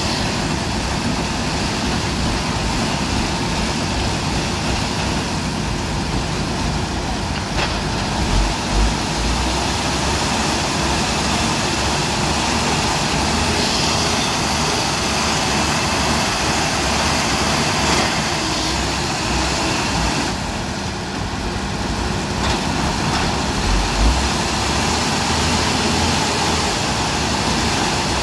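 Heavy diesel engine of a mobile crane running steadily while it lifts an overturned truck upright. Two short low thuds come about eight and twenty-four seconds in.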